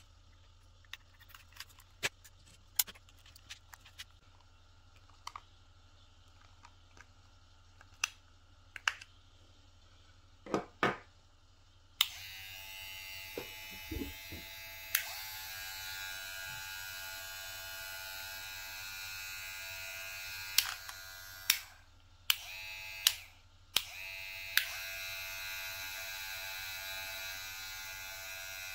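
Scattered light handling clicks and taps at first, then, about twelve seconds in, a cordless hair clipper switches on and runs with a steady buzzing whine. Around two-thirds of the way through it is clicked off and back on a few times, leaving short gaps, and then runs on steadily.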